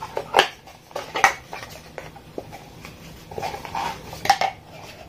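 Cardboard box and plastic packaging being handled and opened, with rustling and a few sharp clicks and knocks, the loudest about half a second in, just over a second in and near the end.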